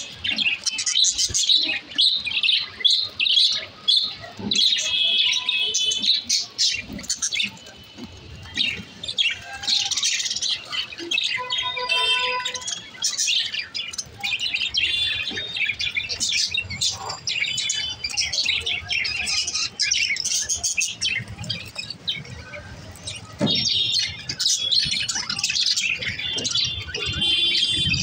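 A flock of budgerigars chattering, with rapid overlapping chirps and warbles that run without a break.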